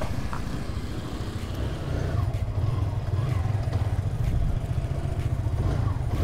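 Motorcycle riding steadily on the road, its engine running under a continuous low rumble.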